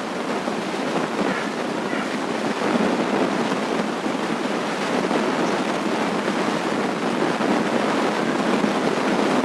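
Loud, steady rushing noise like heavy rain, with no rhythm or tone in it. The uploader says no rain or drizzle was falling, so the source of the rain-like noise is unexplained.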